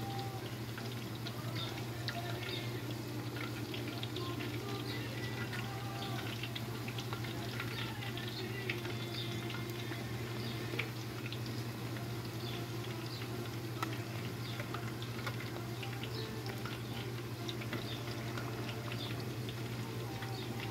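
Corn tortillas deep-frying in a wide pan of hot oil: a steady sizzle made of many small crackles and pops, with a few louder clicks along the way, over a constant low hum.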